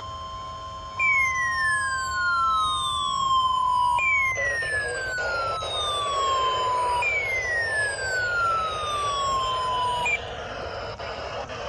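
NOAA Weather Radio weekly-test alert: the steady 1050 Hz warning alarm tone, joined about a second in by a weather radio receiver's siren-like alarm. The alarm makes three falling sweeps, each about three seconds long.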